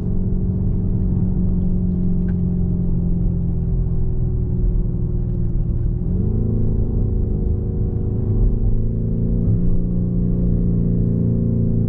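The 2021 Lamborghini Urus's twin-turbo V8 heard from inside the cabin while cruising, over a low road rumble. Its note sinks slowly, then steps up quickly about six seconds in as it shifts down a gear, and holds steady after.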